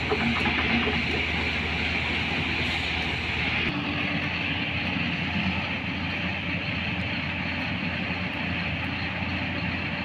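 Heavy diesel engines of earthmoving machinery and dump trucks running steadily, with the engine note changing about four seconds in.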